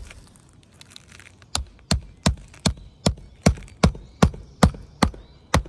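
Hammer driving a 1.5-inch stainless steel roofing nail with a sealing washer through an asphalt shingle: an even run of about eleven sharp strikes, roughly three a second, starting about a second and a half in.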